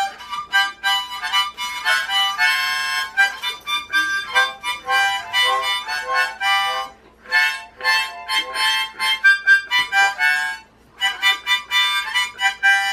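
Harmonica played in quick runs of short notes and chords, held cupped in both hands, with a brief pause about ten and a half seconds in.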